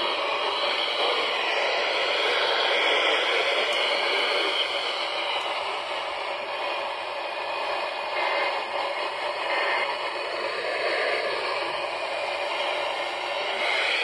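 Steady static hiss from an Eton hand-crank emergency radio tuned to a weakly received FM station, with no clear programme coming through. The owner blames the radio's antenna for the poor reception.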